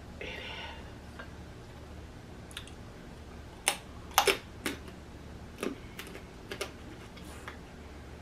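Snow crab legs being eaten close to the microphone: scattered sharp clicks and cracks of shell and wet mouth smacks, clustered most strongly about four seconds in.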